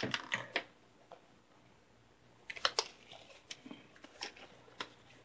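Light clicks and rustles of hands handling small craft materials on a workbench: a short cluster at the start, a quiet stretch, then a couple of sharper clicks about two and a half seconds in and faint scattered ticks.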